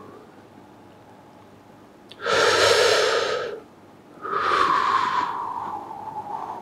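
A person's deep breathing during deep elbow pressure into the shoulder: a loud breath in about two seconds in, then a long audible breath out that falls in pitch and fades.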